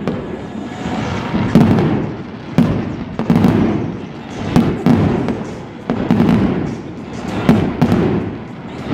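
Aerial fireworks shells bursting in a steady string, a sharp boom once or twice a second, each trailing off in a low rumble.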